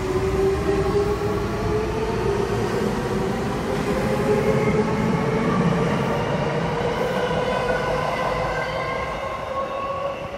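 Eidan (Tokyo Metro) 9000 series electric train accelerating away from the platform, its inverter and traction-motor whine rising steadily in pitch over the rumble of wheels on rail. It fades near the end as the last car clears.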